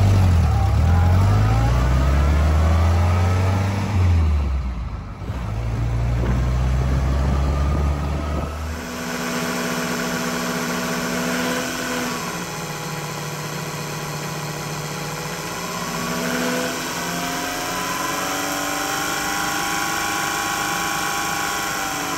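For the first eight seconds or so an engine revs up and down. Then a Sun distributor tester runs with a steady mechanical whine that slowly rises and falls in pitch as its speed is changed.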